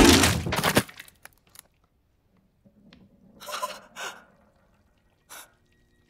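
A loud, sudden smack and clatter as a swinging can of paint hits a boy's face, cutting off the music. After a few seconds of near silence come two sharp gasps and a shorter one.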